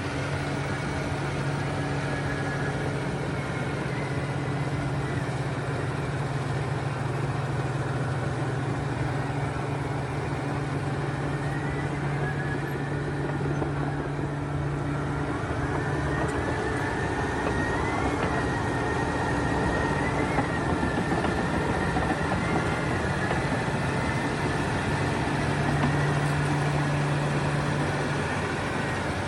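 A motor vehicle or machine engine running steadily; its low hum drops away about halfway through and comes back near the end.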